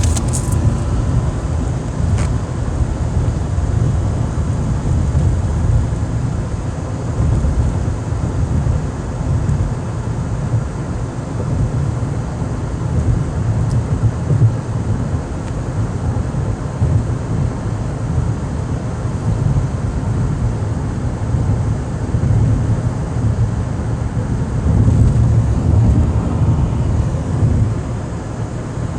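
Steady low rumble with a hiss, heard from inside a car.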